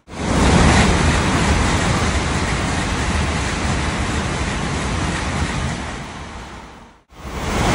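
Tokaido Shinkansen bullet train passing through a station at about 260 km/h without stopping: a loud rushing roar of wheels and air that tails off toward the end of the pass. About seven seconds in it cuts off abruptly and another high-speed pass roars in at once.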